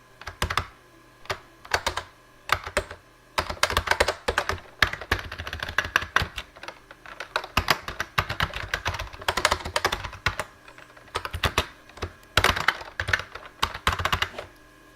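Typing on a Lexmark-made Model M style keyboard with rubber-dome keys: a few separate keystrokes at first, then quick runs of key clicks with short pauses between them.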